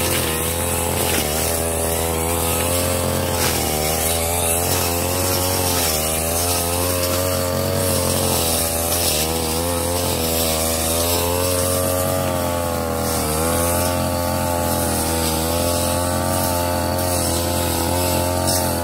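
Ogawa 33 cc two-stroke brush cutter running with a metal blade, its engine pitch repeatedly dipping and rising as the blade bites into overgrown grass.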